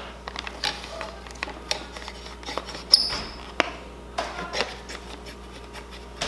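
Scattered light clicks, knocks and plastic rattles of a mini dirt bike's front number plate and brake cable being worked loose by hand, with one sharp metallic clink and a brief ring about three seconds in.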